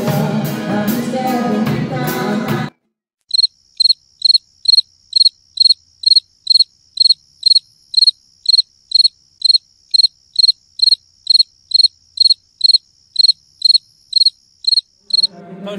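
Band music with singing for the first couple of seconds, cut off abruptly. Then, after a moment of silence, cricket chirping dubbed in as a sound effect: evenly spaced chirps, about two a second, over a thin steady high tone, stopping just before the end.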